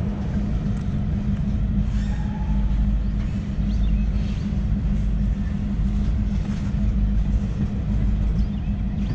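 Diesel locomotive engine idling: a steady low rumble with an unchanging hum. A brief higher tone sounds about two seconds in.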